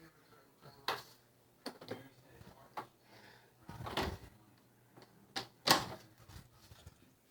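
Scattered knocks and clicks, like things being handled or a door or drawer moving, with the loudest knocks about four and six seconds in.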